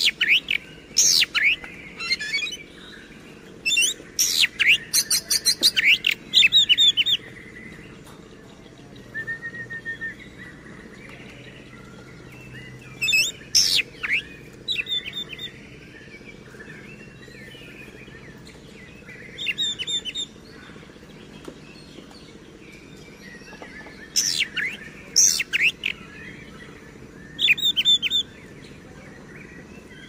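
Oriental magpie-robin singing its loud, varied song in bursts of sharp whistles and rapid trilled notes, each phrase a second or a few seconds long, with pauses of a few seconds between them. The longest and loudest run of song comes a few seconds in.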